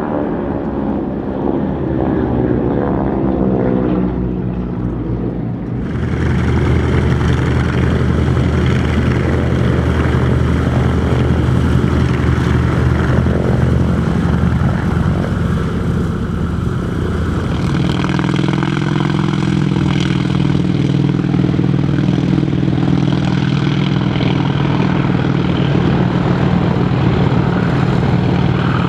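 Piston-engine propeller aircraft in three edited takes. First a formation of four warbirds passes with its engine tone sliding down in pitch. After a sudden cut about six seconds in, a single-engine warbird's engine runs steadily on the ground. From about eighteen seconds a T-28 Trojan's radial engine runs steadily at a higher pitch.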